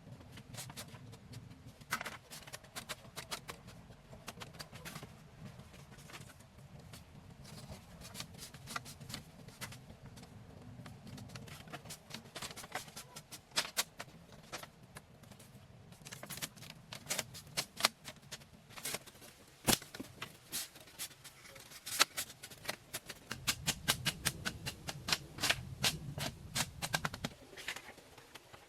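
Irregular sharp taps and knocks from hand work with tools, coming several a second at times and thicker and louder in the second half.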